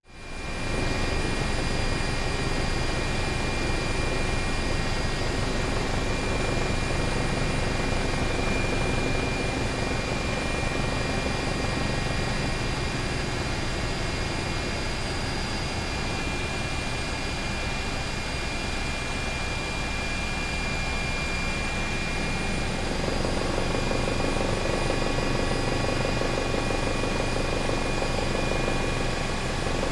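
Helicopter in flight, heard from aboard: a steady rotor chop under a constant high turbine whine. It fades in at the start and holds steady.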